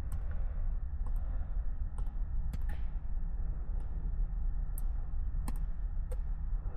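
About ten irregular clicks of typing on a computer keyboard, over the low, steady rumble of the truck's engine idling.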